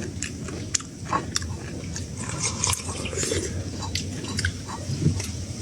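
People biting and chewing crisp food, with many short, sharp crunches and clicks.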